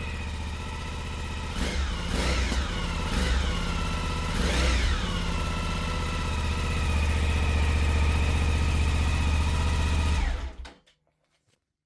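Suzuki V-Strom 1050DE's 1037 cc V-twin idling through its stock exhaust, in a closed garage. The throttle is blipped in four quick revs in the first five seconds, each rising and falling back to idle. The engine then runs steadily until the sound cuts off shortly before the end.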